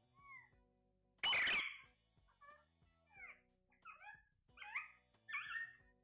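Caged Alexandrine parakeets calling: short arched chirps, one loud harsh screech about a second in, and a quick run of squawks near the end.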